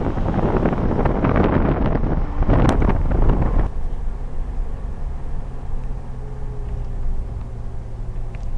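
Wind buffeting the microphone. About three and a half seconds in it cuts abruptly to the steady low hum of a car driving.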